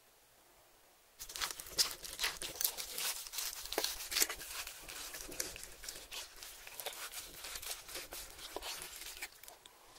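Gloved hands tearing apart and knife-cutting cooked steak: a dense run of crackly tearing and clicking sounds from the meat and its seared crust, starting about a second in and dying away near the end.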